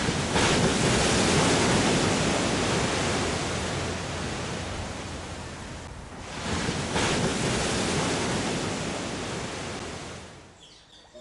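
Ocean surf: two waves break, each a loud rush of noise that swells quickly and then fades away over a few seconds, the second about six seconds in.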